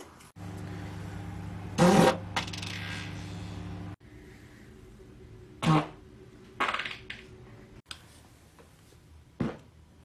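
Several short farts in a row, the loudest about two seconds in, the first over a steady low hum.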